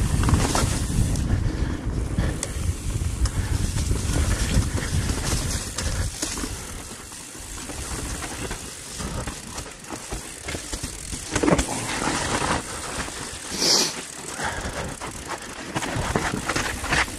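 Transition Spire mountain bike rattling down a rough dirt trail: tyres rolling over dirt and roots with a steady rumble of riding noise, easing off for a few seconds in the middle, then a couple of sharper knocks around eleven and fourteen seconds in.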